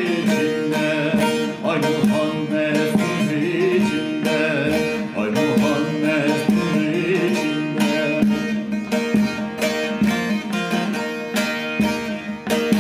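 A man singing an Alevi devotional song to his own bağlama (long-necked Turkish saz). The voice drops out about seven seconds in, leaving the bağlama strummed rhythmically with a pick.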